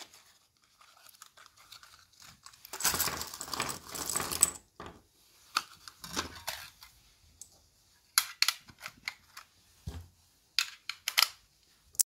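Loose brass .223 Remington cartridges rattle out of a cardboard box onto a wooden bench for about two seconds. Then come sharp metallic clicks in quick clusters as the rounds are pressed one by one into a metal AR-15 magazine, with one dull knock on the bench in between.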